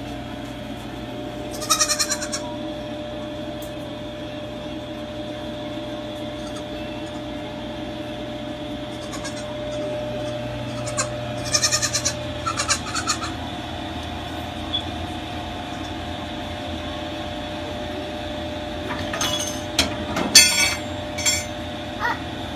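Baby goat bleating repeatedly in short, quavering calls, with a steady hum underneath.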